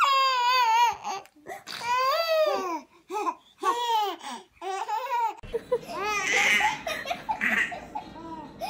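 A toddler girl's high-pitched wail that turns into a run of short, bright laughs. About five and a half seconds in it gives way to a different girl and a baby laughing and babbling.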